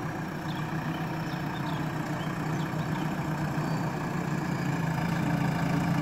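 JCB backhoe loader's diesel engine running steadily, growing a little louder toward the end.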